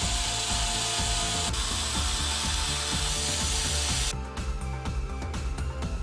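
Cordless drill motor running at speed for about four seconds and then stopping, followed by light mechanical clicking. The drill has a newly replaced chuck and brushes and is run on an upgraded 12.6 V lithium-ion battery.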